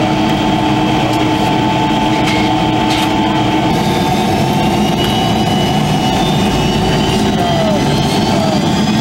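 Jet airliner cabin noise with the engines running steadily; about four seconds in, a slowly rising whine begins as the engines spool up for the takeoff roll.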